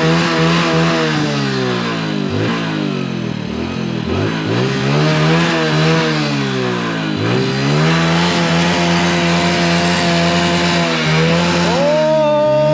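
Hero Honda Passion motorcycle's single-cylinder four-stroke engine revved hard while standing still. The revs rise and fall back several times, then are held high and steady for a few seconds near the end.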